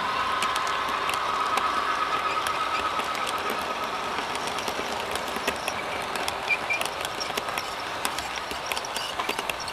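Model passenger cars rolling along the track, a continuous rolling noise with many sharp clicks from the wheels crossing rail joints, slowly fading as the train moves away. A steady high whine fades out over the first three seconds.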